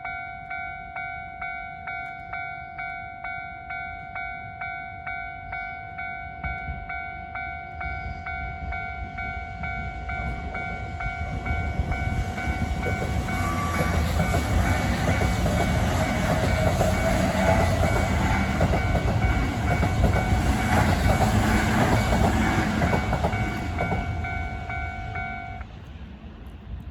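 Japanese railway level-crossing warning bell ringing in a steady, rapid repeating clang while an electric commuter train approaches and passes through the crossing, the train's rumble and wheel noise swelling to its loudest in the middle and then fading. Near the end the bell stops as the crossing clears.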